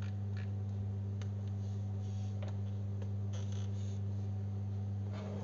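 A steady low hum with a few faint clicks, and no voice.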